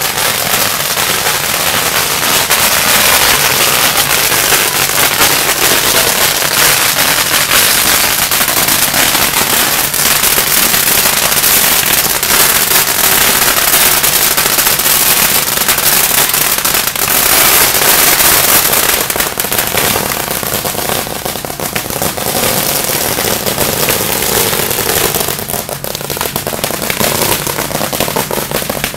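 A long hanging string of firecrackers going off in a dense, continuous crackle of rapid bangs, thinning out a little near the end.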